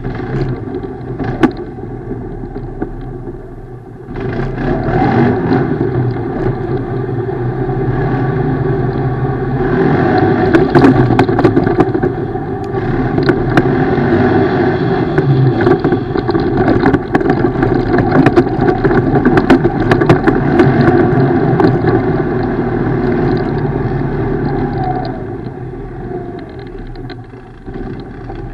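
ATV engine running under varying throttle while riding off-road, picking up about four seconds in and easing off near the end, with scattered knocks and clatters throughout.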